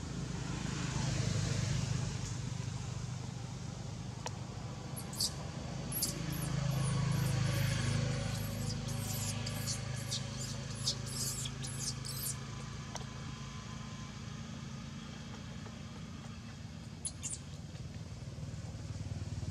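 Low engine hum of road traffic, swelling twice as vehicles pass, with a run of short, very high squeaks through the middle and two more near the end.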